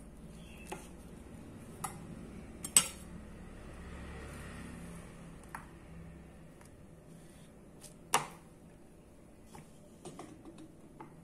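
Japanese gyuto chef's knife (Sakai Takayuki Damascus 33-layer) slicing a tomato on a wooden cutting board: scattered sharp knocks of the blade meeting the board, two loud ones about three and eight seconds in, with quieter clicks between.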